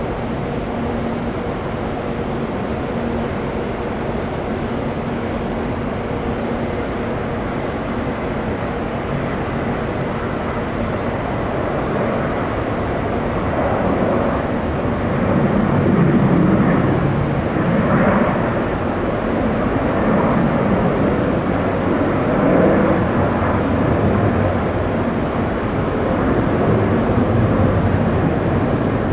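Jet airliner's engines at takeoff thrust, a loud rumble that swells about halfway through and stays loud, wavering in level.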